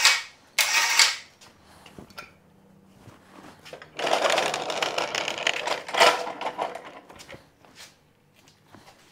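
Overhead electric hoist motor running in short bursts as its pendant buttons are pressed, moving a heavy hanging wheel hub. Near the start it stops, runs again for about a second, then after a quiet gap there is a longer, noisier mechanical run of about two seconds midway.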